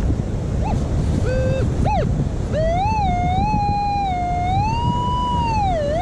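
Minelab Equinox metal detector's target tone: a few short beeps, then a long tone that warbles up and down in pitch for about four seconds as the coil works over a buried metal target.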